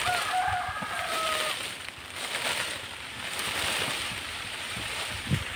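Mango tree leaves and branches rustling in two swells as a man up in the tree shakes them to bring the fruit down, with a few dull thuds, the loudest near the end.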